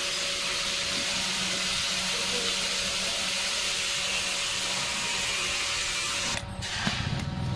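A steady hiss with a faint low hum, cutting off abruptly about six seconds in.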